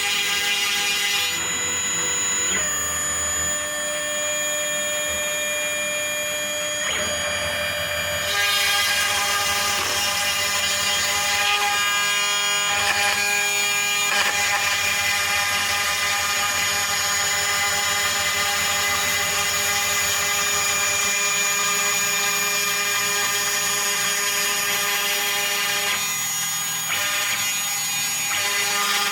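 Homemade CNC router running: its 1.5 kW VFD-driven spindle holds a steady high whine, while the NEMA 23 stepper motors hum in several tones that switch abruptly every few seconds as the axes start, stop and change speed.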